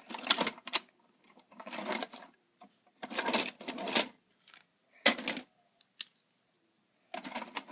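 Plastic Lego bricks rattling and clicking as they are handled, in about six short bursts of clatter.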